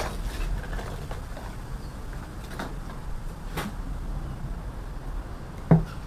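A few light clicks and taps, spread seconds apart, as a propane gas regulator and brass hose fittings are handled and set down on a rubber mat, over a low steady background hum.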